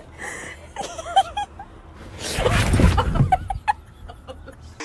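A woman's short cries, then a loud burst of laughter about halfway through, with rumbling on the microphone.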